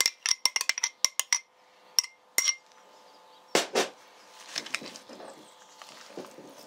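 A metal spoon clinking against a glass jar and bowl as mayonnaise is knocked out: about ten quick ringing taps in the first second and a half and two more around two seconds in. After that the spoon stirs the mayonnaise into shredded cabbage and carrot, giving a soft wet rustling.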